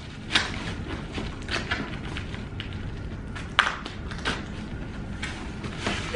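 Cardboard box being opened by hand: packing tape peeling and cardboard flaps crackling and scraping in short, irregular crackles.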